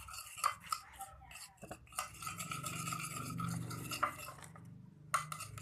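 A stirrer clicking and scraping against a container with irregular taps while clear glue and liquid soap are mixed for slime.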